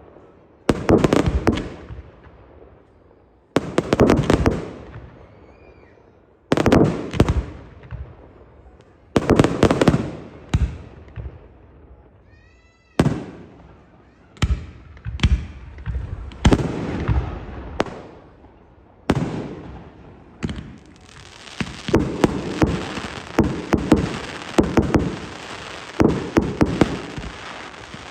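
Aerial fireworks: shells bursting with loud bangs every couple of seconds, each fading into a rolling echo. From about two-thirds of the way through, a dense, almost continuous barrage of rapid bangs and crackles.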